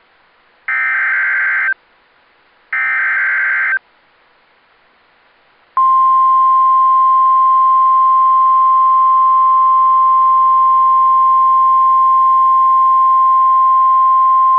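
NOAA Weather Radio Emergency Alert System activation. Two one-second bursts of SAME digital header data come about two seconds apart. After a short pause the loud, steady 1050 Hz warning alarm tone sounds for about nine seconds and cuts off sharply. The sequence is the alert signal that opens a warning broadcast and sets off alert receivers.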